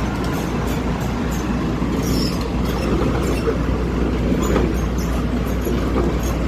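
Excavator's diesel engine running steadily, with a constant low hum and light scattered clicks and clatter.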